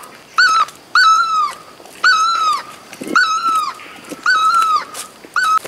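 An animal's repeated high, whining calls, about one a second, each call rising briefly and then falling away in pitch.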